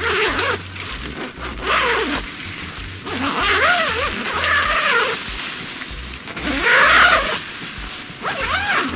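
Zipper being pulled along the edge of a nylon umbrella curtain in several short pulls. Each is a rasping buzz whose pitch rises and falls as the slider speeds up and slows, with the loudest pull about seven seconds in.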